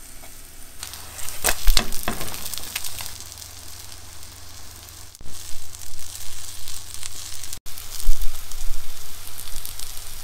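Okonomiyaki batter sizzling in an oiled frying pan, with sharp spitting crackles. The crackling is loudest from about one to three seconds in, breaks off briefly about five seconds in, and grows loud again near the end.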